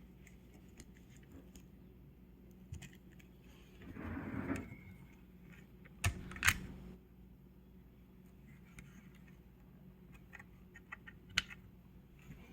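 Small clicks and knocks from handling the opened solar charge controller's parts. There is a brief scraping rustle about four seconds in, two sharp clicks a little after six seconds, and another sharp click near the end.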